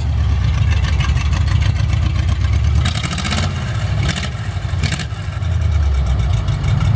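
The V8 conversion engine of a 1952 Ford 8N tractor running as the tractor is driven slowly forward. The engine note eases a little about four seconds in and then picks up again.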